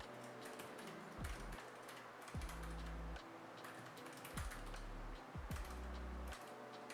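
Typing on a Keychron K3 v2 low-profile keyboard with Keychron's brown optical switches: a quick, irregular run of light key clicks.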